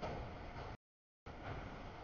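Freight train of autorack cars rolling past, a steady rumble of wheels on rail mixed with wind on the microphone. The audio drops out completely for about half a second, a little under a second in.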